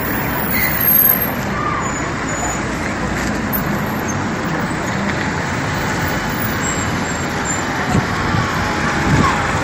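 Water left running from a tap or pipe onto the ground, a steady continuous rush, with faint voices behind it.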